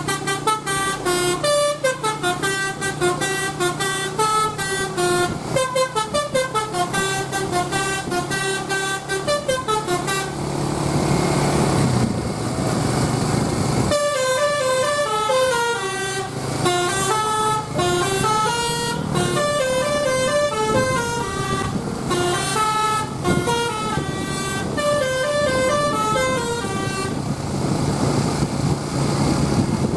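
Bukit Jaya bus's telolet basuri musical horn playing fast tunes of stepping notes. The melody breaks off about a third of the way in for a few seconds of engine noise, then starts again and stops near the end.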